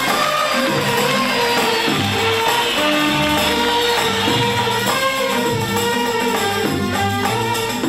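Instrumental break of an Egyptian song from an old radio recording: the band plays a held, moving melody over percussion, with no singing.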